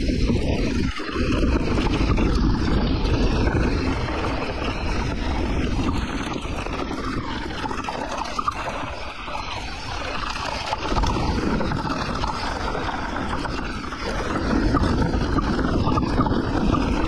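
Santa Cruz Nomad mountain bike being ridden down a dirt and rock trail: tyres rolling and rattling over the ground with wind rushing over the microphone, the noise swelling and easing as the ride goes on.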